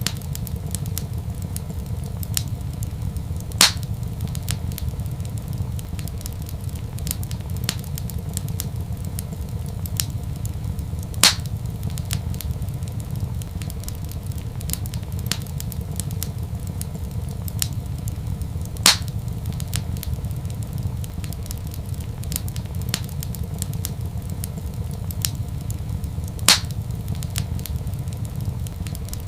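Wood fire crackling: many small crackles over a steady low rumble, with four louder pops spaced evenly about seven and a half seconds apart.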